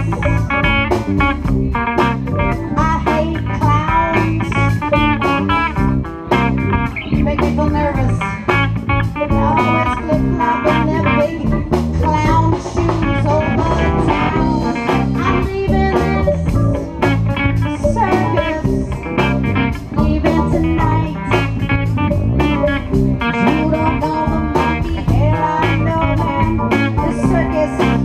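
Live band playing a song: a woman singing into a microphone over electric guitar and keyboard.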